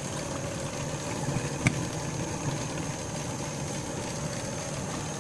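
Chicken curry boiling in a wok on a gas stove: a steady low rumble, with one sharp click a little under two seconds in.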